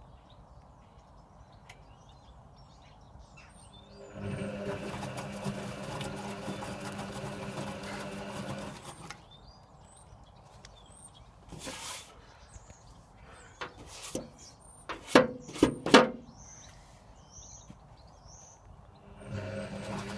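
Servis Sapphire 6055 washing machine's drum motor tumbling the wash with a steady hum for about five seconds, stopping, and starting again near the end. In the pause there is a short hiss and a cluster of sharp knocks, the loudest sounds here.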